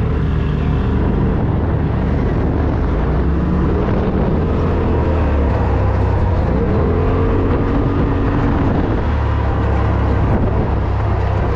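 Polaris RZR Turbo S side-by-side's turbocharged twin-cylinder engine running hard off-road, its revs rising and falling, with wind and ground noise.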